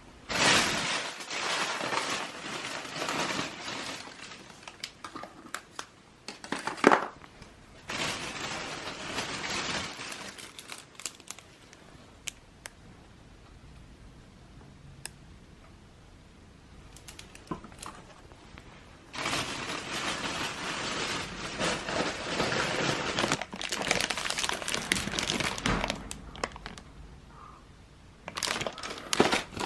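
Crinkling and rustling of something crinkly being handled, in bursts of a few seconds with quiet gaps, and a single sharp knock about seven seconds in.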